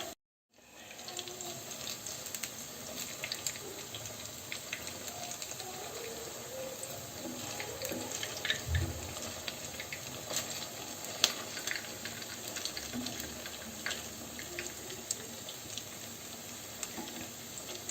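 Potato-stuffed bread rolls deep-frying in hot oil: a steady sizzle with scattered crackles and pops, and a dull knock about nine seconds in.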